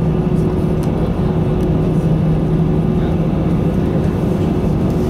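Airbus airliner's jet engines at taxi power, heard from inside the passenger cabin: a steady low hum under a constant rushing noise.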